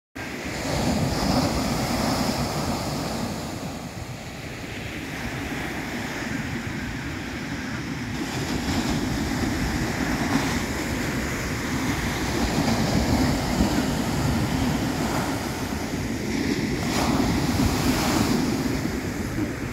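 Ocean surf breaking on a sandy beach and washing up the shore, rising and easing in slow surges, with wind rumbling on the microphone.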